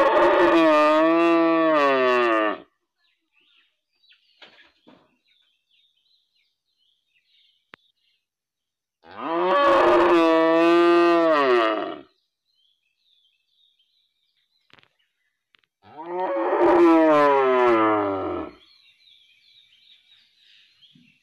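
Domestic cow mooing: three long moos several seconds apart, each lasting about two and a half to three seconds and wavering in pitch.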